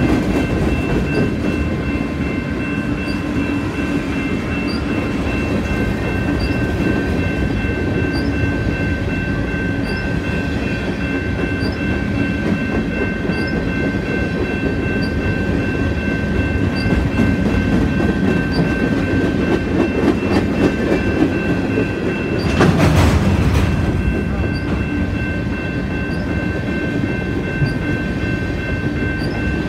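Freight cars, covered hoppers and tank cars, rolling past close by with a continuous rumble and wheel clatter on the rails. A steady high whine runs over it. About two-thirds of the way through there is a brief louder surge lasting about a second.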